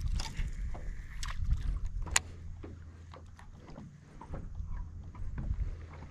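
Water lapping against a small boat's hull, with scattered light knocks and clicks over a low steady rumble.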